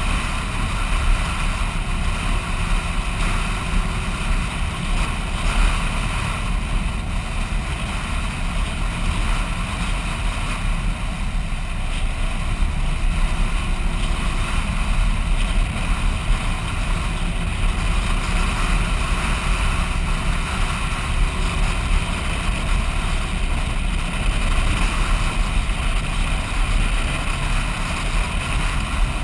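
Vehicle driving at speed on beach sand: steady wind rush and buffeting over engine and tyre noise, with no sudden events.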